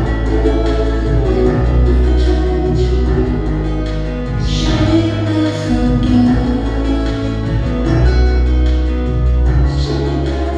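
Live band music: keyboards and synthesizer with acoustic guitar over a steady bass line, with soft singing.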